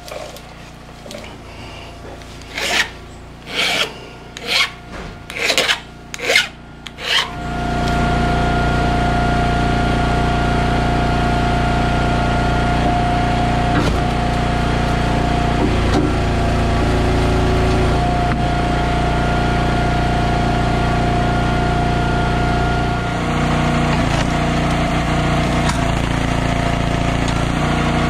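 A hand file rasping across chainsaw chain teeth in about eight to ten quick strokes. About seven seconds in, a steady engine takes over and keeps running, most likely the wood splitter's gas engine.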